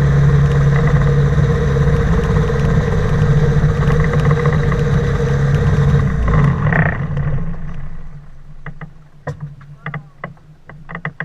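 Engine of a flying inflatable boat running at a steady pitch, then cutting off about seven seconds in. After that come scattered short knocks.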